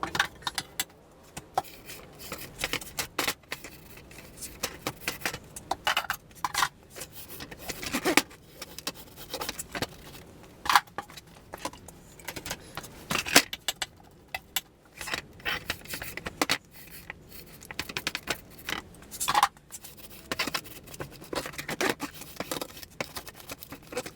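A roller being worked back and forth over the plastic foundation in a beehive frame, spreading melted beeswax: irregular scraping, rubbing and light clicking and knocking of the roller and frame.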